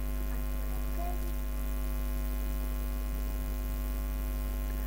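Steady electrical mains hum, a low buzzing drone with many overtones that does not change.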